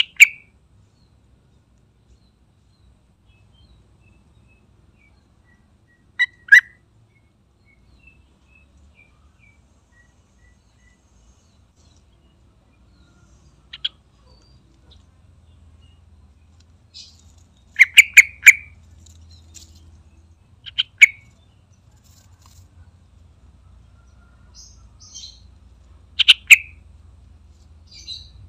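Yellow-vented bulbul calling in short, loud bursts a few seconds apart, with a quick run of three calls about two-thirds of the way through and faint soft notes in between.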